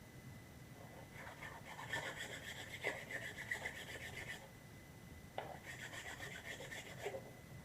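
Sandpaper rubbed by hand over a 3D-printed plastic prop part, in two spells of quick back-and-forth scratchy strokes with a short pause between.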